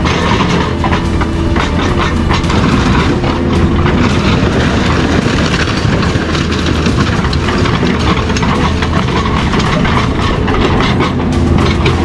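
Heavy machinery crushing metal: a loud, continuous clatter of quick metal knocks over a steady low machine hum.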